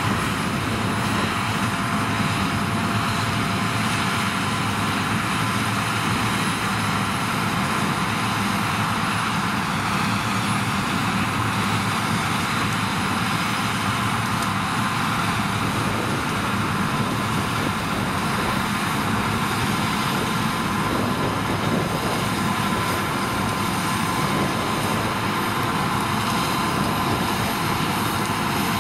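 A Claas Lexion 670 combine harvester working alongside a Fendt 724 Vario tractor, the combine threshing and unloading grain on the go into a chaser bin. It is a steady machinery drone with a few high, steady whining tones over it.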